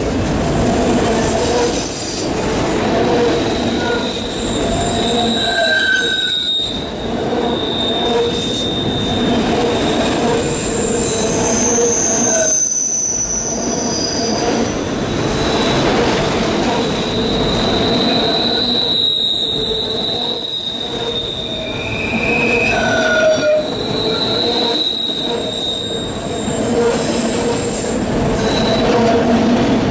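Auto rack freight cars rolling past at close range, with steady noise of steel wheels on the rails and many short, high-pitched wheel squeals coming and going.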